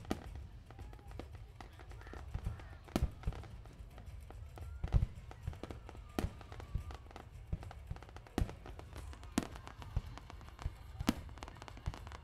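Fireworks display: shells bursting in sharp bangs every second or two, over a low rumble, with people's voices faintly between the bangs.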